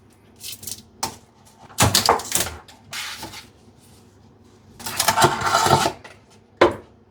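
A delivery bag and its taped, stapled packaging being handled and opened: a series of short rustles, clicks and scrapes, a longer rustling tear about five seconds in, and a sharp click near the end.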